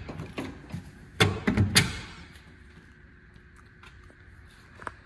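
A few knocks and rattles of a wooden boat rail with aluminium trim and bolts being handled, loudest about a second in, then quiet and a single sharp click near the end.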